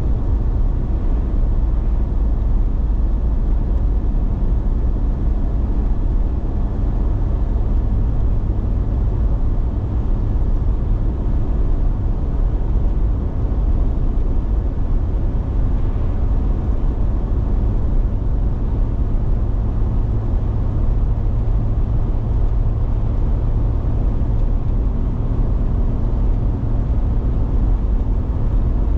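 Steady low road and engine rumble inside a moving car's cabin at highway speed, with no changes.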